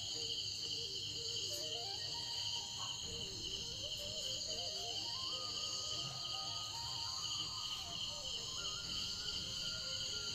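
Crickets chirring steadily in a high, pulsing trill, with a faint melody underneath that rises and falls in steps.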